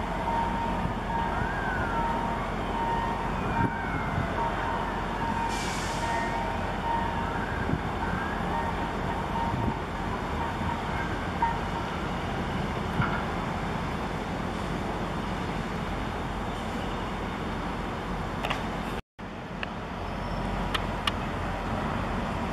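Steady outdoor background noise with a faint steady tone and faint rising and falling whistles through the first half. The sound cuts out for an instant near the end.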